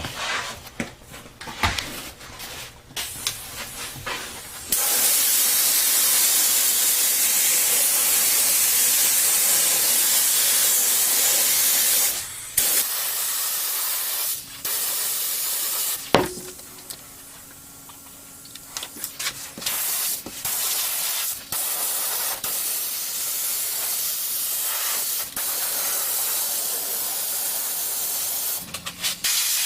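Long hissing blasts from a pressurised spray nozzle used while gluing replacement seat foam, broken by short pauses, with a few handling clicks in the first few seconds.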